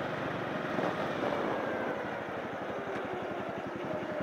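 Motorcycle engine running while riding, a steady run of low firing pulses under a continuous rush of noise, picked up by a camcorder's built-in mic taped inside the rider's helmet.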